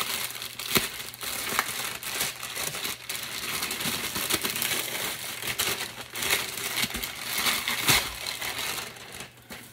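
Thin clear plastic wrapping bag crinkling and crackling as it is handled and unwrapped, with sharp crackles throughout and louder crinkles just under a second in and again about eight seconds in.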